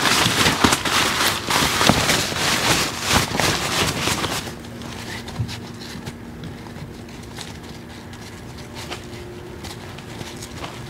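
Tent window curtain fabric crinkling and rustling as it is gathered and rolled up by hand. The handling is loudest for the first four or five seconds, then turns quieter and more occasional.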